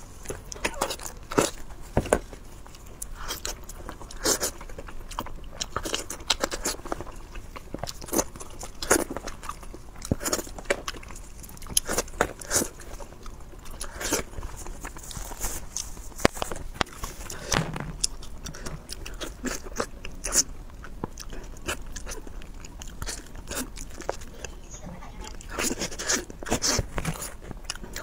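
A person eating seafood close to the microphone: biting, chewing and crunching, with many short sharp clicks at irregular intervals.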